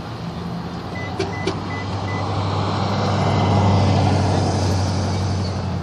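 A steady low engine hum, with a rushing noise that swells to a peak past the middle and then fades, like a vehicle going by. About a second in there are two sharp clicks and a few short, evenly spaced high beeps.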